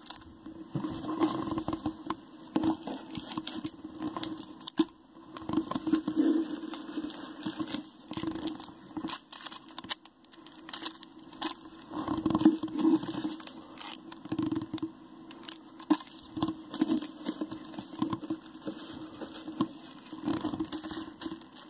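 Plastic packaging of trading-card products being handled and opened, in irregular bursts with many short clicks and taps.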